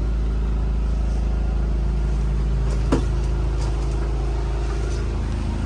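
The motorhome's onboard generator running, a steady low hum from inside the coach, with one short click about three seconds in.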